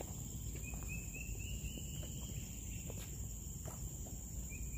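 Outdoor nature ambience: a steady high-pitched insect drone, with a low rumble underneath. A run of short chirps climbing in pitch comes about half a second in, and again near the end.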